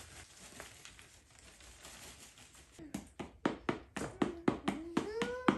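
A quick run of about nine sharp taps, about three a second, starting about three seconds in, as potting soil is settled around a freshly potted plant. A short wavering pitched sound rides over the last few taps.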